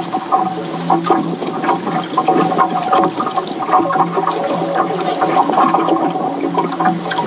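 Water sloshing and slapping against a small fishing boat's hull, over a steady low hum.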